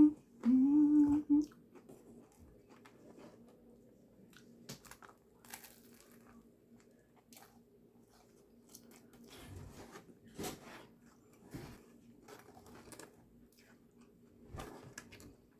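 A person hums a loud, pleased 'mmm' with a full mouth about a second in, then chews a sandwich with soft, scattered mouth clicks and crunches.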